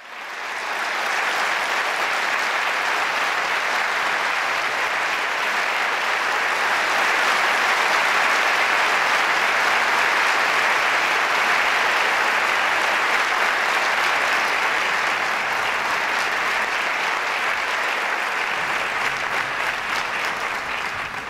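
Audience applauding steadily, rising within the first second and fading at the very end.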